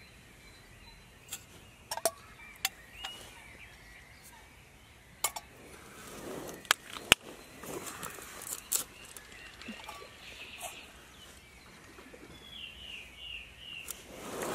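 Camp cookware handled on a small gas canister stove: sharp metal clicks and clinks of a pot and lid, then water poured from a plastic bottle into the pot. A bird gives four quick, high chirps near the end.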